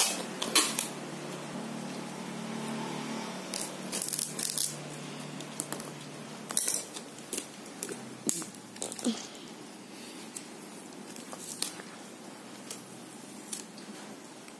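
Hands working cardboard and clear packing tape: scattered rustles, crinkles and short sharp crackles.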